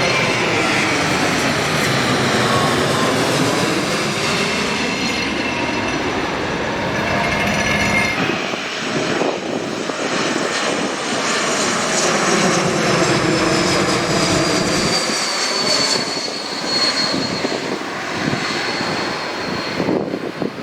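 Jet airliner passing low overhead: steady engine noise with a high fan whine that slowly falls in pitch as it goes by.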